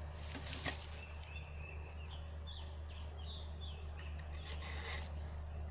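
A bird calling in the background: a series of short chirps and whistled notes for a few seconds, over a steady low hum, with a couple of faint scrapes near the start and end.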